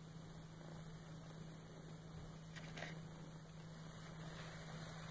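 Quiet room tone: a steady low electrical hum over faint hiss, with one faint brief click a little under three seconds in.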